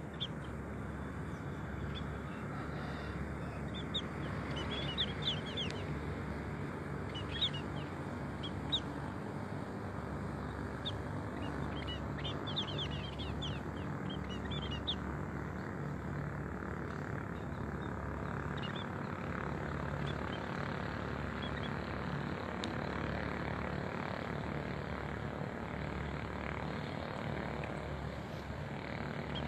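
Small birds chirping in quick, high clusters, mostly in the first half, over a steady low mechanical drone.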